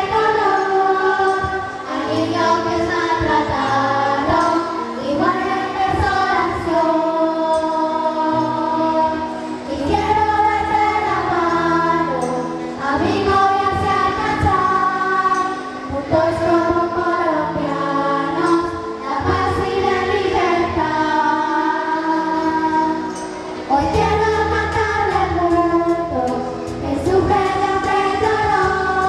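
A children's choir of mostly girls singing together through headset microphones, with a musical accompaniment carrying a low bass line beneath the voices.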